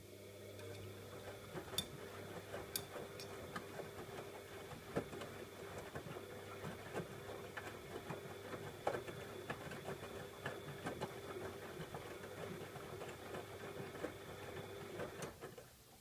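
Bosch Maxx WFO3274EX front-loading washing machine turning its drum in a 40 °C colour wash: a steady motor hum with wet laundry tumbling in irregular knocks and patters. The drum motor stops near the end.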